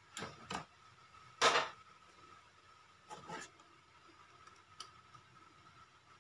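Handling noise from a white plastic CCTV camera and its swivel mounting bracket: a few separate plastic knocks and clicks as the parts are turned and fitted, the loudest about one and a half seconds in.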